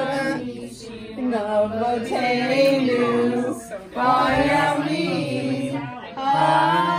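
A group of mixed voices chanting the Hebrew blessings over the Hanukkah candles in unison, in long held phrases of about two seconds with short breaths between them.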